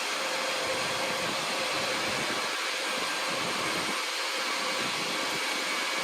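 Steady whir of the cooling fans on running GPU mining rigs, with a faint constant hum.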